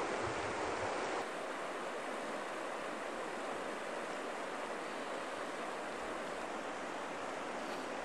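Shallow mountain river water running over gravel and cobbles: a steady, even wash of flowing water.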